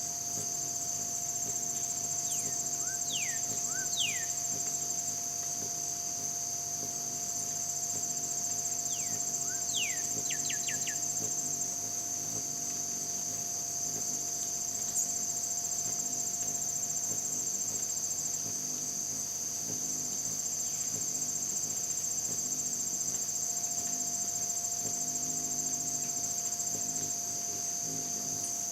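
Steady, high-pitched chorus of singing insects such as crickets, running throughout. A bird gives a few quick downward-sweeping calls twice: once a few seconds in and again as a rapid run of four or five about ten seconds in.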